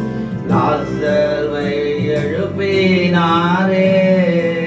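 Tamil Christian worship song: a voice singing a slow line over steady instrumental accompaniment.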